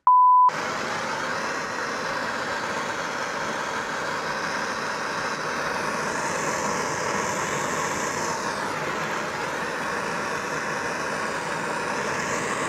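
A short electronic beep, then a handheld gas torch's flame hissing steadily as it plays on a molded plastic extension-cord plug, which catches fire.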